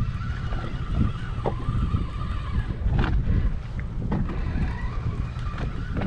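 Wind buffeting the microphone with a steady low rumble, over a faint whir as a spinning reel is cranked. A couple of sharp knocks about three and four seconds in, from the rod and reel being handled.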